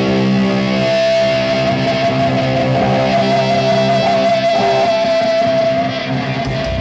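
Distorted electric guitars of a live metal band sustaining a ringing chord, with a single high note held over it from about a second in.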